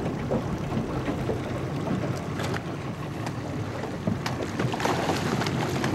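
Schools of redfish splashing and churning at the surface of choppy water: many small, scattered splashes over a steady wash, with a steady low rumble underneath.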